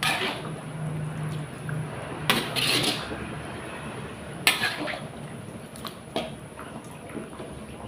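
Metal spatula scraping and clinking against a wok while stirring a coconut-milk curry, the thin liquid sloshing. Several separate strokes, the longest about two and a half seconds in.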